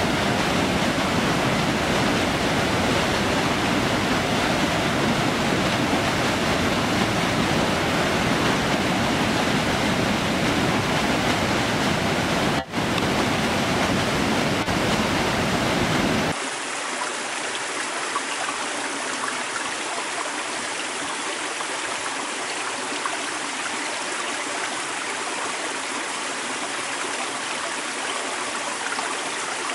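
Rushing water, a dense full-bodied roar of falling or fast-flowing water; about 16 seconds in it cuts abruptly to a lighter, thinner sound of a stream running.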